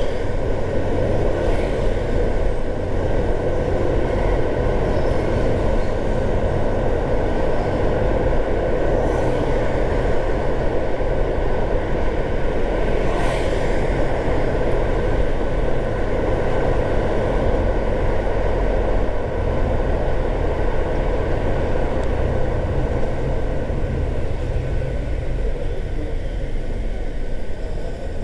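A car driving along: steady low rumble of tyre and engine noise, with a few faint ticks.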